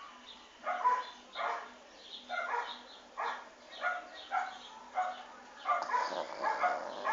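Sleeping dog snoring: a run of short, quick snores, roughly one every two-thirds of a second, some louder than others.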